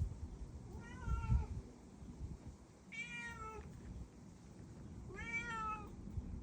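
Three separate animal calls, each about half a second to a second long and falling slightly in pitch at the end, about two seconds apart, over a low rumble.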